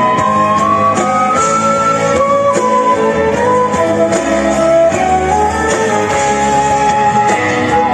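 Flute and violin playing a melody together in long held notes, with cajon percussion and an amplified backing track underneath.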